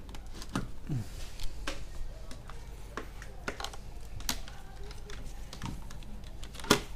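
Irregular light clicks and taps of a laptop charger's cable and plug being handled against the desk and laptop, with one sharper click near the end.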